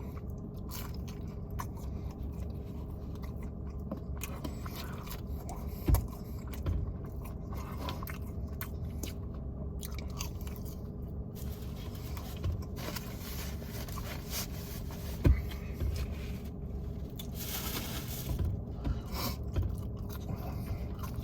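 A person chewing and biting food close to the microphone, with small crunches and scraping. There are two sharp knocks, about 6 and 15 seconds in, and a louder crunchy rustle shortly after.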